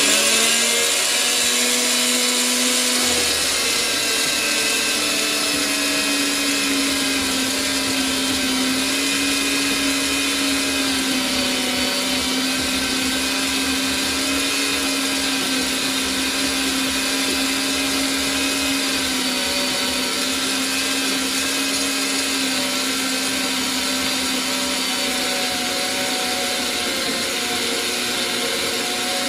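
Parkside portable metal band saw running and cutting through a rusty steel bar: a steady motor whine whose pitch steps up slightly about three seconds in, with a rougher low layer joining it.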